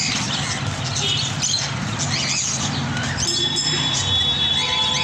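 Busy background of people's voices murmuring, with short high chirps scattered through. About three seconds in, a steady high-pitched tone sets in and holds.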